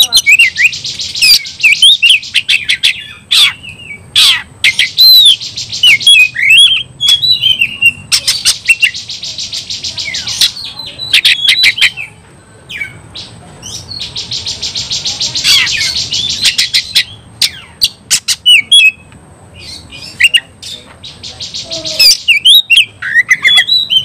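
Oriental magpie-robin (kacer) singing loudly in aggressive fighting mood. Rapid buzzy trills lasting a second or more each come several times, broken up by sharp whistled notes and clicking calls.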